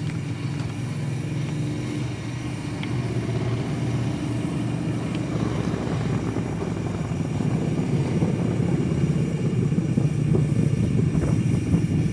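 A vehicle's engine running steadily with a low hum, a little louder in the second half.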